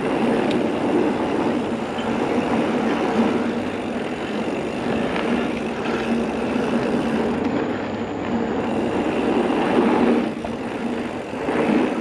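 Mountain bike tyres rolling fast over a hard-packed gravel trail, with wind rushing over the microphone of a rider-mounted camera: a steady, loud rushing noise.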